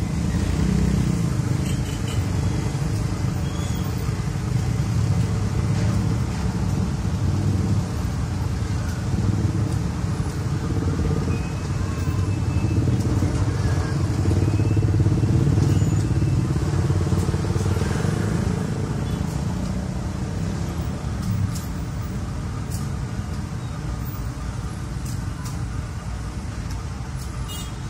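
Dense road traffic of motorcycles and cars crossing a railway level crossing, with many small engines running together in a steady low rumble that swells and eases.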